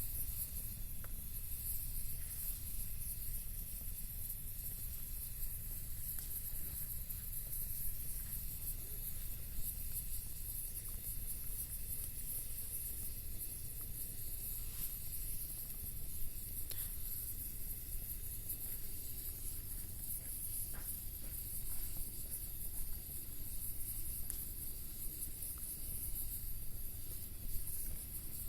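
Wood bonfire burning: a steady hiss and low rumble with scattered sharp crackles and pops from the burning wood.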